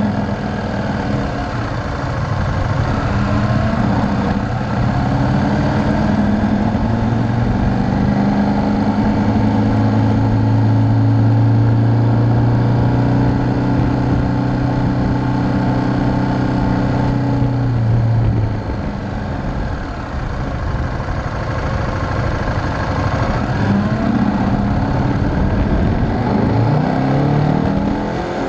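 KTM V-twin motorcycle engine pulling steadily while riding, with wind and road noise on the fork-mounted camera. The engine note climbs slowly, drops off about two-thirds of the way through as the throttle closes, then rises again toward the end.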